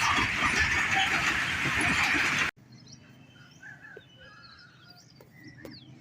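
Loud, steady rumbling and rattling of a passing train, which cuts off abruptly about two and a half seconds in. After that only faint bird chirps remain.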